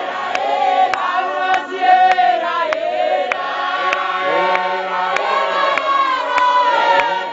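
Large church congregation singing together, many voices at once, with sharp regular beats about twice a second.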